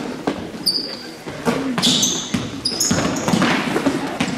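Basketball game on a hardwood gym floor: the ball bouncing in repeated thuds, short high sneaker squeaks, and some players' voices.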